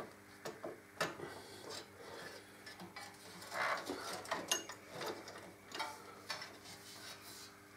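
Light, irregular metallic clicks and small rattles from hands fitting and threading the swingarm mount bolts on a Harley-Davidson Electra Glide.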